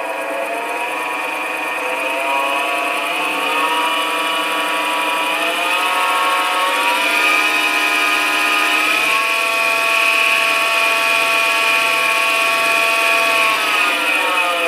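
HiTorque 5100 7x16 mini lathe running with no load. The whine of its motor and drive rises in pitch in several steps as the speed control knob is turned up, holds steady at high speed, then falls near the end as the speed is turned back down. A steady high-pitched whine sits over it throughout.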